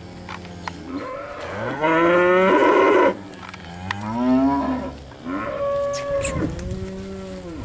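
Several steers mooing in a run of overlapping calls, one after another; the loudest, a long high moo about two seconds in, breaks off suddenly at about three seconds.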